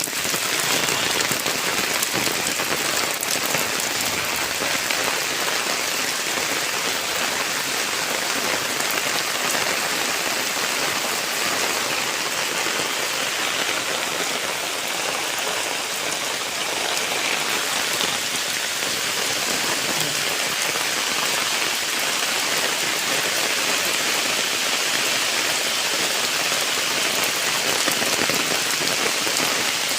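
Steady, even hiss of water with no break, of the kind rain or fast-flowing floodwater makes.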